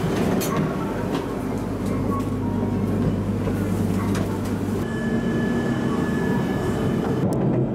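Ambience inside a stationary Shinkansen car and on its platform. A steady low hum runs under scattered clicks and knocks. After a cut about five seconds in, a steady high-pitched tone sits over general platform noise.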